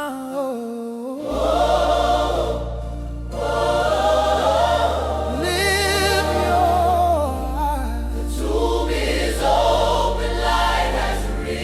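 Gospel song with a choir singing wordless or unrecognised vocal lines over sustained bass notes that change every couple of seconds.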